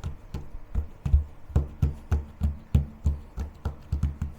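Background music with a steady low beat, about three beats a second.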